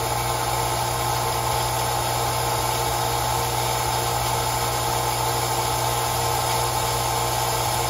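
3/4 HP residential well jet pump motor running steadily with a constant low hum, building water pressure toward its cut-out point of about 50 psi.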